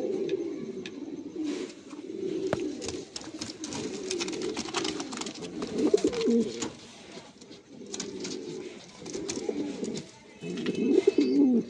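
Pigeons cooing in repeated low, wavering bouts of a second or two each, with light clicks and scratches between them.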